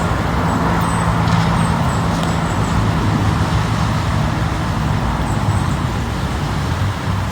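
A motor vehicle's engine idling steadily: a low, even hum under a constant hiss.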